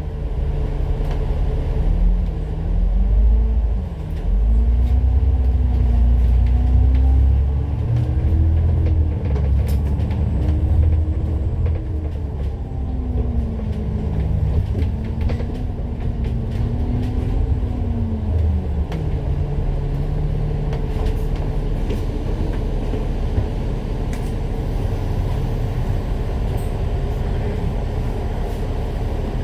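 Citybus bus's diesel engine pulling away and running under way. Its note dips and climbs several times in the first half as the bus accelerates through the gears, then eases to a steadier, lower run for the last ten seconds.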